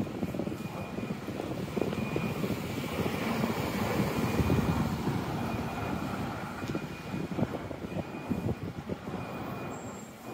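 Outdoor city street noise picked up by a phone's microphone while walking: a steady low rumble that swells a little about four seconds in and eases near the end.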